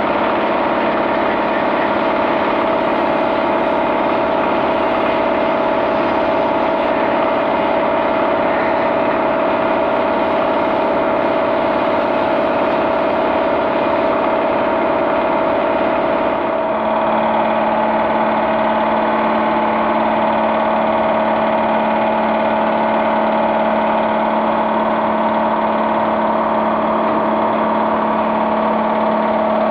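A steady mechanical drone, engine-like, holding an even note, with an abrupt change in its tone about sixteen seconds in.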